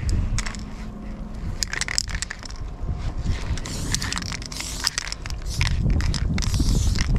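Footsteps crunching in snow, then an aerosol spray-paint can hissing in short bursts in the second half.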